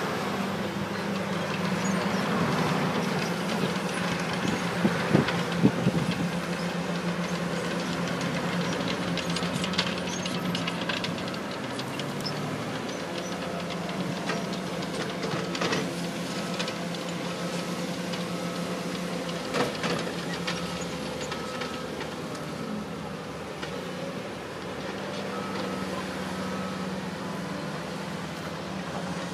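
Diesel engine of a Mercedes-Benz Actros 4140 dump truck running steadily as the loaded truck drives on a dirt site road, with a few short knocks.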